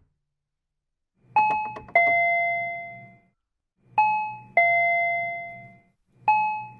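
Doorbell chime rung three times in a row, about two and a half seconds apart. Each ring is a two-note ding-dong that falls in pitch, and the second note rings on and fades.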